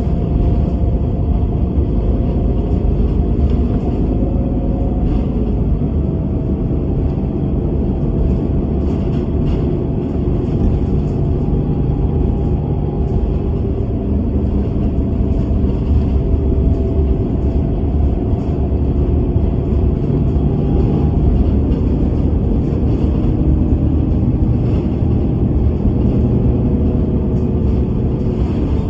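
Bus running at speed: a steady low engine and road rumble with a faint whine whose pitch shifts every few seconds, and light scattered rattles.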